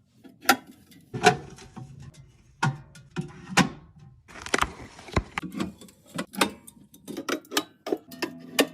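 Containers and groceries being handled and set down while a fridge is restocked: irregular clicks, taps and knocks, with a brief rustle about four and a half seconds in.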